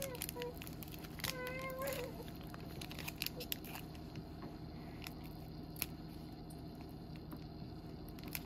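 Foil wrapper of a Panini Prestige Football card pack crinkling and crackling in a run of small clicks as fingers pick and pull at its sealed end, struggling to tear it open. Two brief high-pitched meow-like cries come in the first two seconds.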